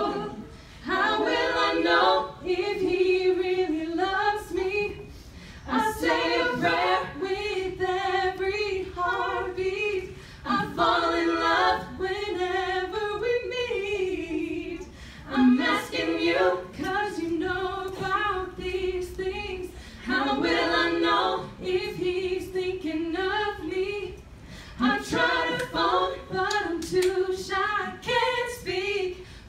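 Three women's voices singing a pop song together, a lead voice with backing harmonies. It runs in phrases of a few seconds with short breaks between.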